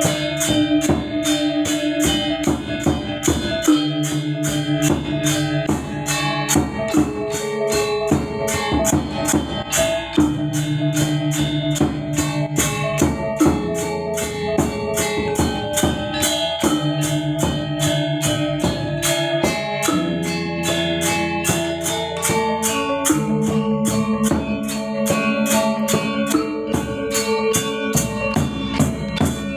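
Balinese gamelan gong ensemble playing: sustained bronze metallophone and gong tones shifting in pitch over a fast, even pulse of bright metallic strokes.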